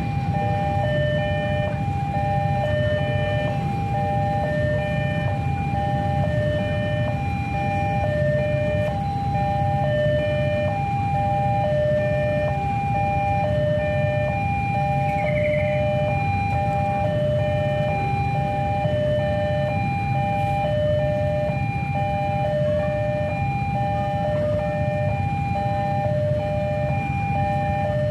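Railway level-crossing warning alarm sounding continuously: an electronic signal that alternates a lower and a higher tone without pause, the sign that the crossing is closed for an approaching train. A steady low rumble runs underneath.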